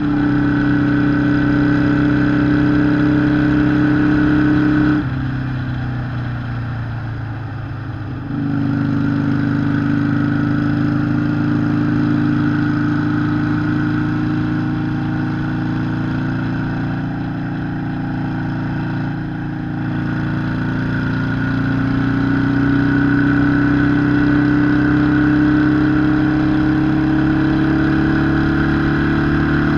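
Harley-Davidson Sportster 883 SuperLow's air-cooled V-twin running at a steady pace. The throttle comes off about five seconds in and goes back on about three seconds later, and the engine's pitch slowly rises near the end.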